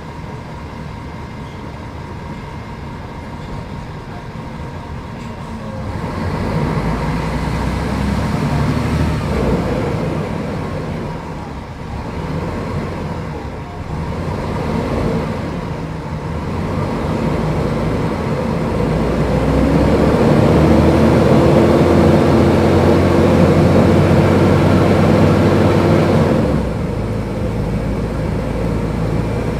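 Mercedes-Benz O500UDA bus's diesel engine running under changing load: it steadies low at first, pulls harder about six seconds in, eases off and picks up again twice, then runs loudest with a rising, then steady note from about two-thirds of the way through until it drops back sharply near the end.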